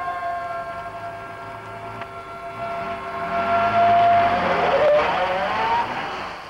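A car drives past, its sound building to its loudest about four seconds in and then falling away, over a held steady tone.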